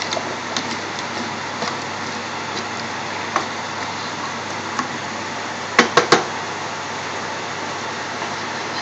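Wooden spoon stirring a thick chicken and butternut squash curry in a metal pot, knocking against the pot now and then, with three quick sharp taps about six seconds in, over a steady background hiss.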